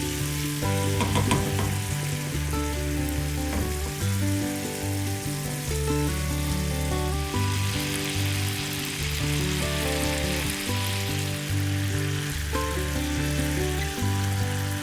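Food sizzling as it fries in hot fat in a pan, a steady crackling hiss. Background music with held, stepping bass notes plays under it.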